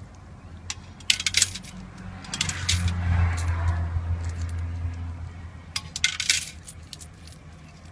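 Coins dropped through the slot of a metal honesty cash box, clinking inside in three short bursts about a second, two and a half and six seconds in. A low hum swells and fades in the middle.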